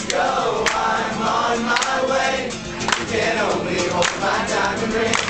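Several voices singing a song together, loud and close, in a live acoustic set in the middle of the crowd, with a few sharp knocks.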